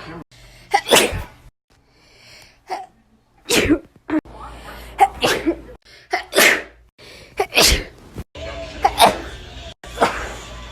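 Human sneezes, one after another, about seven short, sharp sneezes with brief silent breaks between them.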